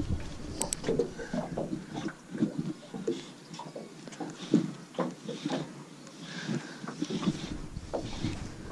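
Irregular knocks, rustles and clicks from a baitcasting rod and reel being handled and wound while a hooked bass is fought in.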